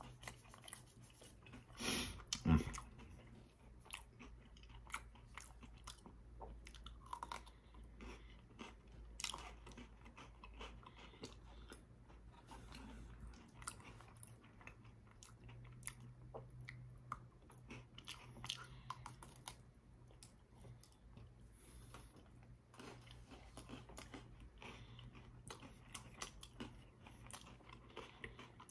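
Chewing and crunching of a mouthful of chilled cookies and cream Pocky biscuit sticks, with a sharper crunch about two seconds in and small crunches throughout.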